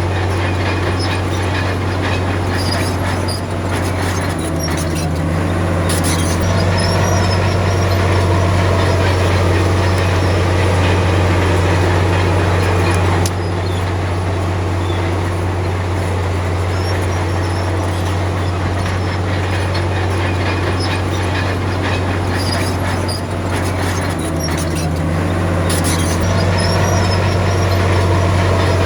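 Komatsu D53P crawler bulldozer's diesel engine running hard under load, its note rising and falling a few times as it works, with the steel tracks clanking and squealing.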